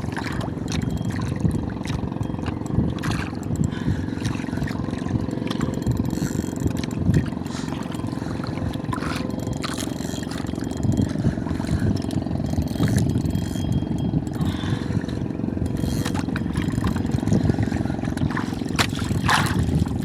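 Boat engine running steadily, with scattered light clicks over it.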